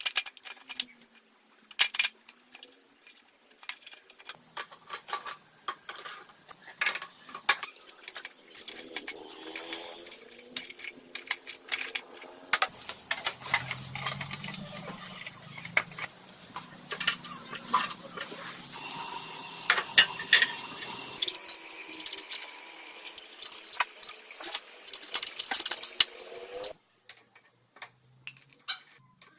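Metal parts and hand tools clinking, tapping and rattling, many sharp clicks in quick succession; it cuts off suddenly near the end.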